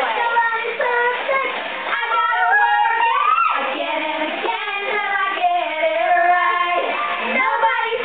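Young girls singing a pop-song melody, with music behind.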